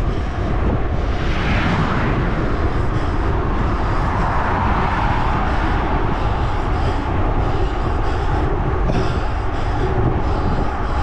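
Wind rushing over the microphone of a handlebar-mounted camera on a bicycle ridden at about 30 km/h, a steady noise heaviest in the lows that swells briefly a couple of times.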